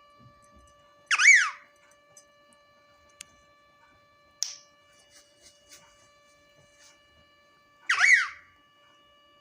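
Pet parrot giving two loud, shrill calls, each about half a second long and sweeping down in pitch, one about a second in and one near the end, with a short sharp chirp between them.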